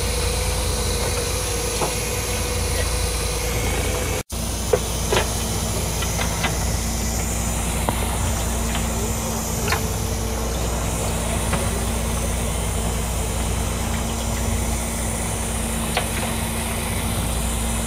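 Fishing boat's engine running steadily, with a hiss of wind and sea over it and a few light clicks. The sound breaks off for an instant about four seconds in.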